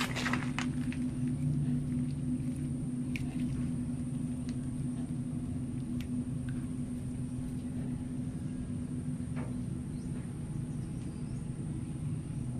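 Steady low machine hum with a thin high whine above it, and a few faint clicks and scrapes.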